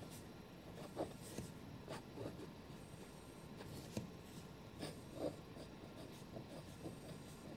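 Fine nib of a Namiki Nippon Art fountain pen scratching faintly across Rhodia paper as cursive script is written, in short irregular strokes with a few sharper scratches among them.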